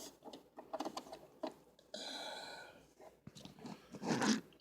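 Small clicks and taps of hands handling RAM modules in the 27-inch iMac's memory bay, followed by a short steady hiss about two seconds in and a louder rustle near the end.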